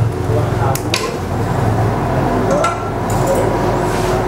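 A few short metallic clinks and clicks as small tools and parts are handled on a workbench, over a steady low hum.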